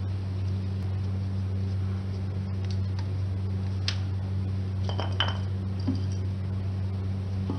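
Light metallic clinks of metal parts being handled, a few sharp ones about four and five seconds in, over a steady low electrical hum.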